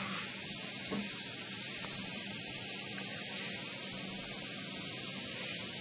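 Steady hiss with no distinct events, at an even level.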